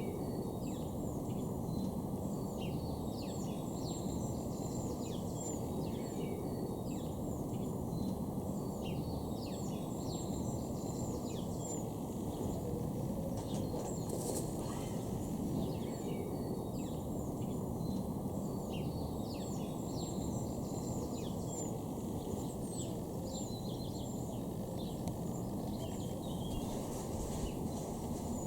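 Outdoor ambience: small birds chirping and singing throughout in many short high calls, over a steady low background noise.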